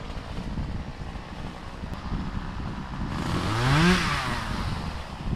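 Two-stroke chainsaw running low with a rumble, then revved up once about three seconds in, rising sharply in pitch for about a second before dropping back.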